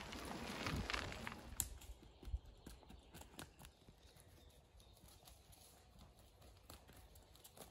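A pony's hooves trotting on a soft forest path: faint, uneven footfalls. Over the first two seconds a steady rustling noise lies over them.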